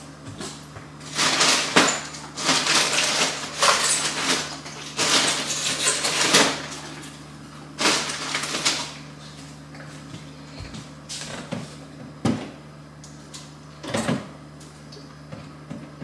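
Loud bursts of crinkling and rustling plastic through the first half, then a few sharp knocks, as small plastic water bottles are handled and taken from their packaging. A low steady hum runs underneath.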